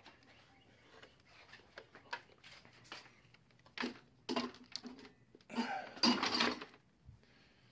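Irregular clicks, knocks and clatter of parts and tools being handled during disassembly of the van's interior engine cover, louder in two bursts about four and six seconds in, over a faint steady hum.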